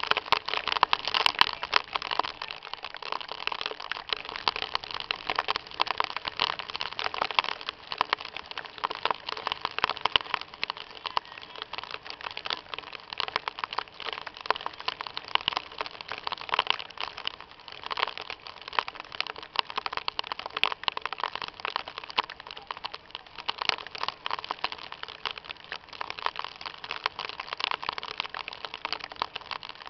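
Heavy rain and hail pelting down, a dense steady crackle of countless small impacts.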